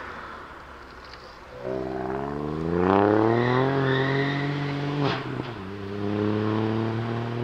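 Ford Fiesta ST's turbocharged three-cylinder engine accelerating hard: the revs climb from about two seconds in, a sharp crack comes about five seconds in as the revs drop, and the engine then pulls steadily at lower revs.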